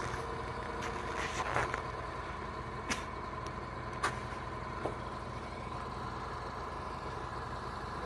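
Diesel engine of a logging machine running steadily at a distance, with a few sharp clicks over it.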